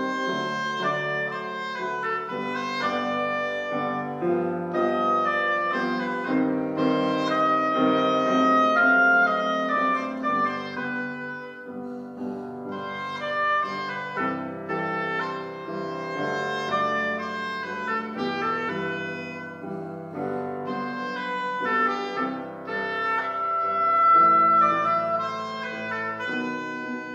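Oboe playing a melody with grand piano accompaniment, a classical duo performance.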